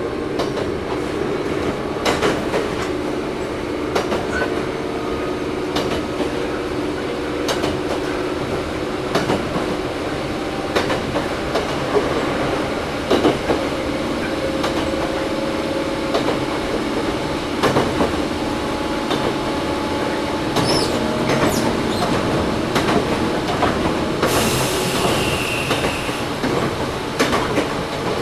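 Toyohashi Railway 1800 series (ex-Tokyu 7200 series) resistance-controlled electric motor car running, heard from inside: a steady motor and gear hum, with rail-joint clicks coming through again and again. A brief high hiss with a thin squeal comes about 24 seconds in.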